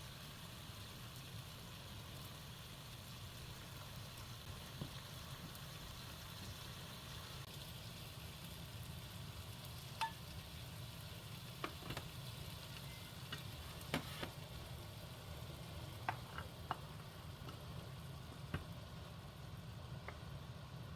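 Faint household sounds: a steady low hum with a few light clicks and taps, mostly in the second half.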